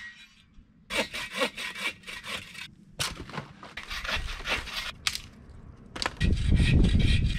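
Hand saw cutting dead branches: runs of quick back-and-forth rasping strokes with short pauses, louder and deeper over the last second and a half.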